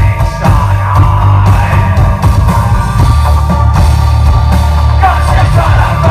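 Live industrial music played loud, with a heavy bass and beat dominating.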